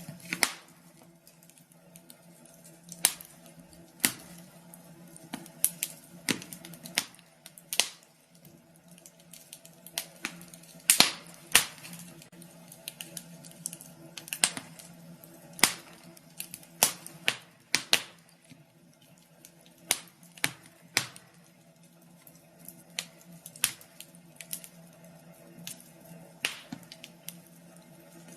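Wood fire in a fireplace crackling, with irregular sharp pops and snaps of burning logs, over a steady low hum.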